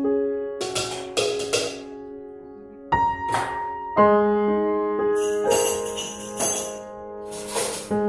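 Instrumental background music: piano notes over light jingling percussion struck every second or so.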